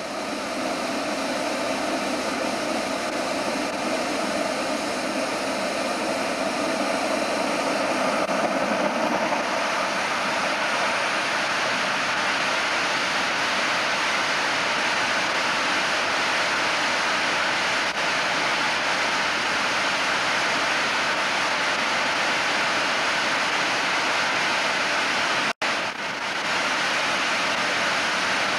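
SimJet 1200 model gas turbine engine running on a test stand, a steady loud jet rush. About nine seconds in it grows brighter and a little louder, and it cuts out for an instant near the end.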